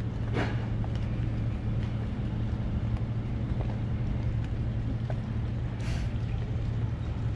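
Boat diesel engine running steadily at low revs, a deep even hum, with a short hiss or scrape about a second in and again near the end.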